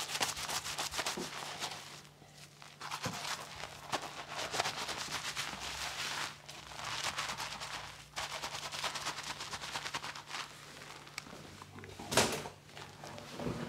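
Fingers scrubbing a thickly lathered scalp: the shampoo foam crackles and squishes in spells with short pauses, and there is a louder smack about twelve seconds in.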